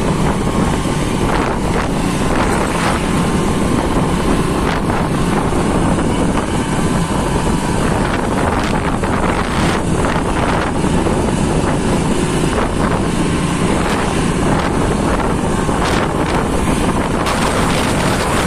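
A Kubota tractor's diesel engine running steadily as it drives along the road, under constant wind noise on the microphone.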